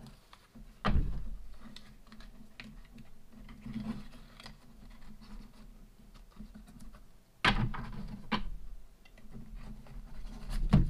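Hands rummaging in a cloth stocking and handling small items: soft rustling and scratching with a few sharp knocks, the loudest about a second in and two more around seven and a half to eight seconds in.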